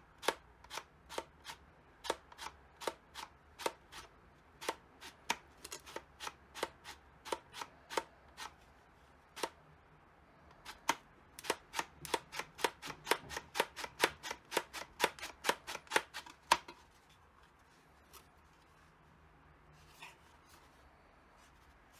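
Rapid series of sharp clicks from the 3D-printed plastic router attachment being worked by hand, about two a second at first, quickening to four or five a second about halfway through, then stopping abruptly.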